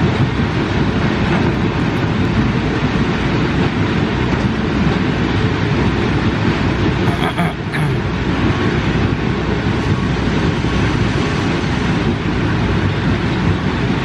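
Kobelco hydraulic excavator's diesel engine running steadily under load as the machine digs gravel from the river bed and swings to load a dump truck.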